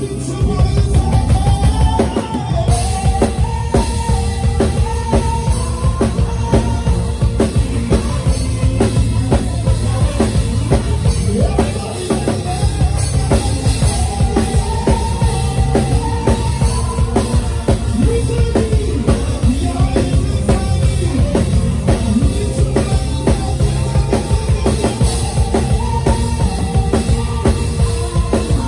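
Praise band playing an upbeat instrumental groove: a drum kit keeps a steady driving beat with a strong bass drum, and a wavering melodic line runs over the top.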